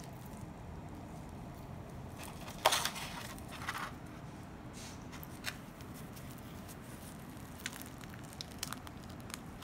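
Crisp fried wonton and egg-roll wrappers crackling as hands tear them open, with one sharp crunch about three seconds in, a few smaller crackles just after, and scattered faint ticks later.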